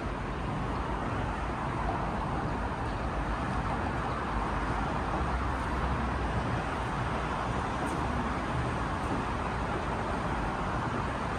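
Steady road traffic noise: an even wash of car sound with no single vehicle standing out.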